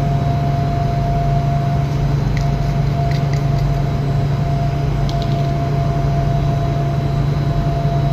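Machinery running with a steady low hum and a fainter steady higher tone above it.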